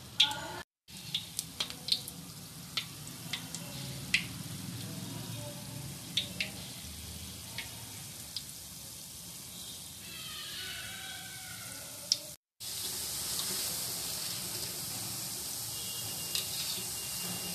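Sweet gulgule batter dropped by hand into hot oil in a kadai, deep-frying with a steady sizzle broken by scattered sharp pops and crackles. After a brief cut-out about twelve seconds in, a panful of dumplings fries with a louder, hissier sizzle.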